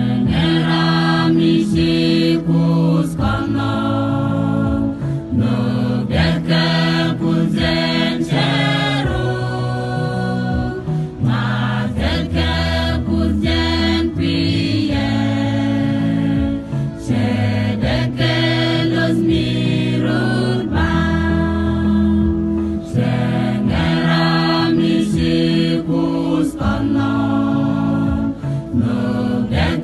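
A mixed choir of men and women singing a Christian song together.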